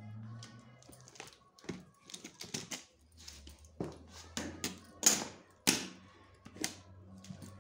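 Irregular metallic clicks and clanks of a hand-operated metal-strap tensioner being worked on the strap, with two louder clanks a little past the middle.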